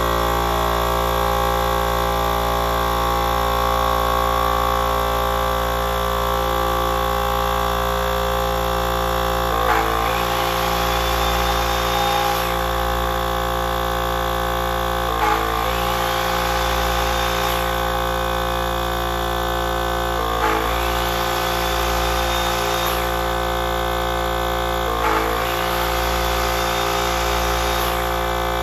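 Electric induction-motor loads running off a 24-volt inverter, with a steady hum. From about ten seconds in, a motor is switched on about every five seconds. Each start is a click and a whine that rises as the motor spins up and levels off, a startup under heavy inrush current.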